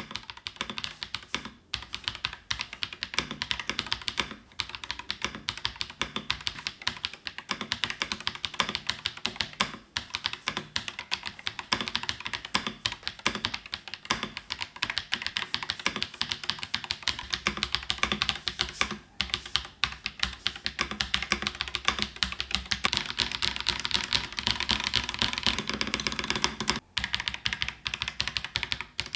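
AKKO 5075B Plus mechanical keyboard with Akko V3 Cream Yellow Pro linear switches and thin PBT double-shot keycaps being typed on steadily: a fast, continuous run of keystrokes with a few brief pauses.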